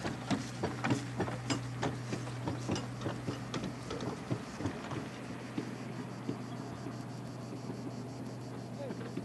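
Cow-drawn cart loaded with hay bales rattling past, with an irregular clatter of knocks and creaks from the cart and the animals that dies away about five seconds in. A steady low hum runs underneath, and a fast, high ticking comes in during the second half.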